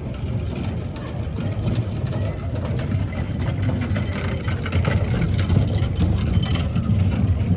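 Airport terminal ambience: a steady low engine-like rumble with a faint murmur of voices, growing a little louder about five seconds in.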